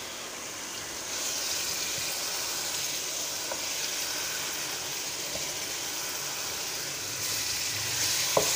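Raw chicken pieces frying in hot tomato gravy in a steel pot, a steady sizzling hiss that starts about a second in and grows louder near the end, with a couple of light knocks.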